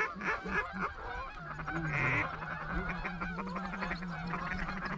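Duck quacking calls: a rapid series of about four quacks a second in the first second, then a lower, steadier drawn-out note with softer chatter.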